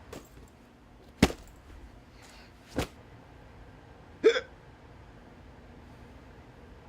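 A person hiccuping: three sharp hiccups about a second and a half apart, the last one with a short voiced "hic".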